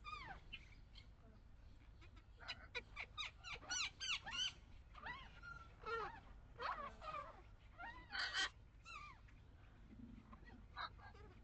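A string of short, high-pitched animal calls, some sliding up and down in pitch, coming in quick runs, over a steady low rumble of wind.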